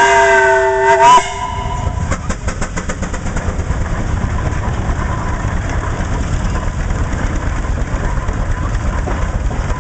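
Advance Rumely steam traction engine's steam whistle blowing a held, multi-tone note that cuts off sharply about a second in, then the engine running on with a quick, regular exhaust beat as it drives.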